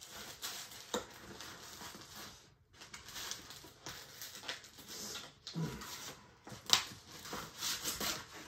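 Cardboard packaging rustling and scraping as a stiff panel is slid out of its cardboard sleeve and handled, with scattered taps and clicks; one sharp click about two-thirds of the way through is the loudest sound.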